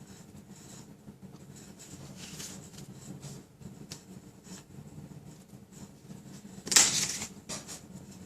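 Paper and card being handled on a craft table: soft rustling and light taps, with one louder rustle about seven seconds in.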